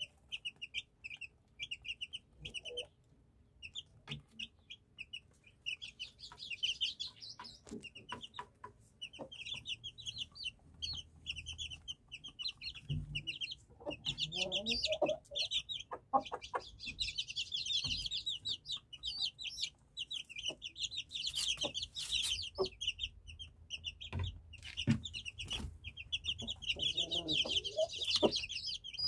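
Índio Combatente gamefowl chicks peeping in rapid high-pitched series, with a short gap a few seconds in. An adult hen clucks lower about halfway and again near the end, among scattered sharp taps.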